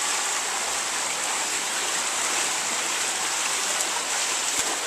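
Steady rushing and splashing water in an indoor swimming pool as a swimmer kicks and strokes through backstroke.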